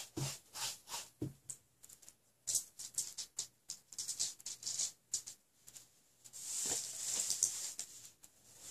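Bristle brush scrubbing oil paint onto a stretched canvas in quick, scratchy strokes, with a couple of light knocks early on and a longer rubbing swish about six and a half seconds in.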